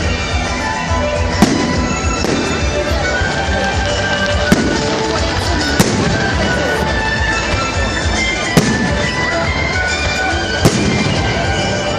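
Fireworks display: shells bursting with sharp bangs, five loud ones a few seconds apart, over a steady dense crackle and scattered short whistling tones.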